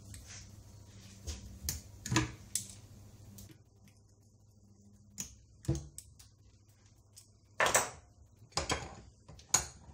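Sharp metal clicks and cracks as locking pliers snap pieces off the spoke flange of an aluminium bicycle hub held in a bench vise, then louder clunks and clatter near the end as the vise handle is turned and tools are handled.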